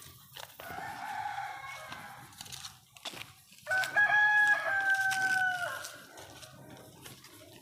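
Rooster crowing twice: a fainter crow first, then a louder, longer crow about four seconds in.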